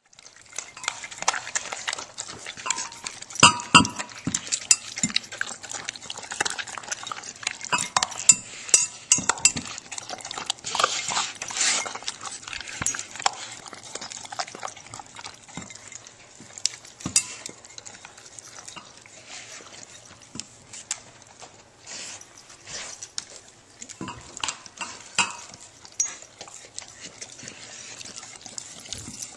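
Yellow Labrador retriever feeding from a bowl: an irregular run of clicks and clinks against the bowl, busiest in the first half.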